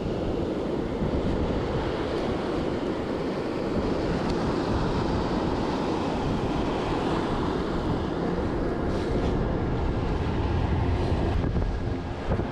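Wind buffeting the microphone over waves breaking on the shore: a steady rushing noise with no distinct events.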